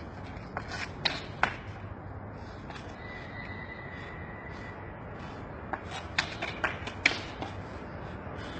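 A long wooden branch dragged and knocked along asphalt as a small dog carries it in its mouth: bursts of scraping and clattering about a second in and again in the second half, with a quieter stretch between.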